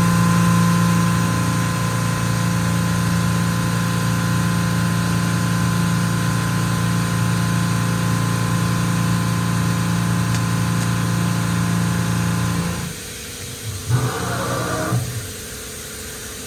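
Hardinge GX480 CNC vertical machining center running under power with a steady mechanical hum. Near the end the hum drops away, and a brief whir sweeps up and down in pitch, with a sharp click or two.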